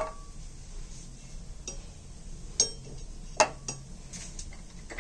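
Blocks of dark chocolate compound being set down one by one into a small stainless steel bowl: about five short knocks and clinks of chocolate against metal, the loudest at the start and about three and a half seconds in.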